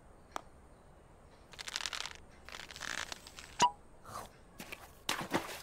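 Sparse, quiet cartoon sound effects: a few soft clicks and short rustling swishes.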